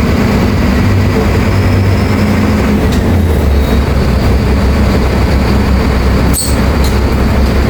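Mercedes-Benz OF-1724L city bus's diesel engine running steadily under way, with road and body noise. The engine note steps lower about three seconds in, and there is a short break with a sharp clack about six and a half seconds in.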